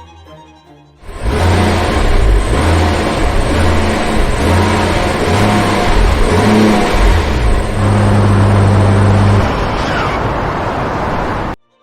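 A car engine running under acceleration, loud, with a low engine note that shifts up and down. It starts abruptly about a second in and cuts off sharply just before the end.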